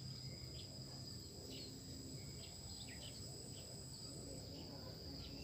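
Steady high-pitched drone of insects, crickets or cicadas, holding two even tones throughout, with a few faint short chirps over it.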